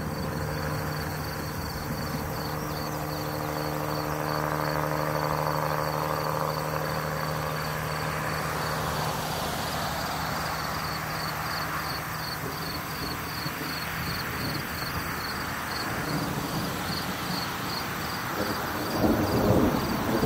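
Crickets chirping in a steady high pulse about twice a second over a low steady hum and outdoor background noise, with a louder low rumble near the end.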